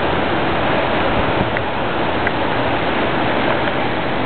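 Steady, loud rush of tropical-storm wind and rain.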